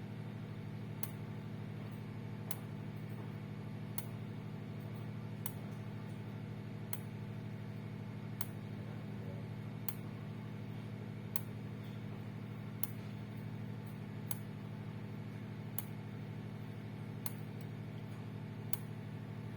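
Stafix X3 electric fence energizer clicking with each output pulse, about one sharp click every one and a half seconds, over a steady low hum.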